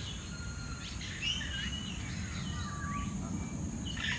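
Several birds calling in an aviary: a mix of short whistles, chirps and quick rising and falling notes from more than one bird, over a steady high-pitched drone and a low background rumble.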